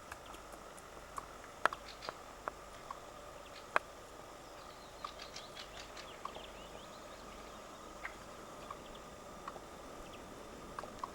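Eurasian red squirrels making short, sharp clicking noises at irregular intervals, the loudest in the first few seconds, with a brief flurry of faint high chirps in the middle; the clicks are the squirrel's hiccup-like call.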